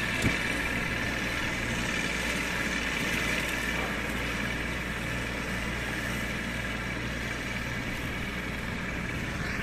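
Baroness LM320AF four-wheel-drive ride-on mower running steadily while it cuts grass, with its engine and mowing deck making an even hum. There is one short knock about a third of a second in.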